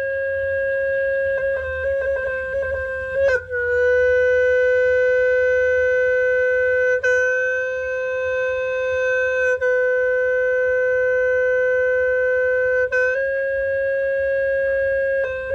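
Khmer snaeng, a horn with a free reed, sounding long held notes on two closely spaced pitches. It steps down a little about three seconds in and back up near the end, with quick fluttering repeated notes before each change.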